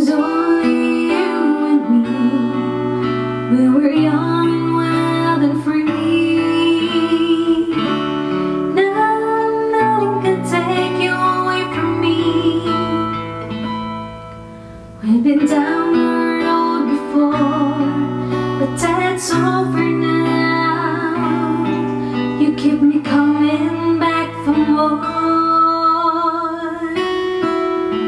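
A woman singing a song over a strummed guitar accompaniment, as an audio test of a BM800 condenser microphone powered by 48V phantom power. Her voice drops out briefly about halfway through, between phrases.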